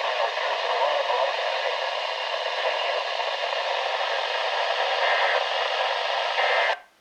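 Radio static from a NOAA weather radio receiver: a steady, loud hiss with no voice in it, cutting off abruptly just before the end.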